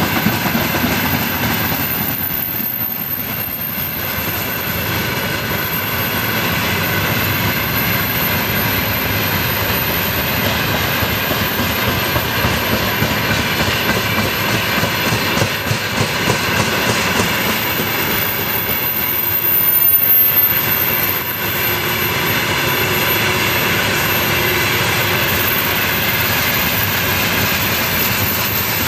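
Train hauled by a 2TE10U diesel locomotive running steadily on the rails, a continuous rail-and-engine rumble that swells briefly about twenty seconds in.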